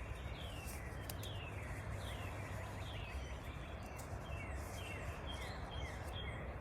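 A bird chirping: a run of short, falling chirps, about two a second, over a steady background hiss.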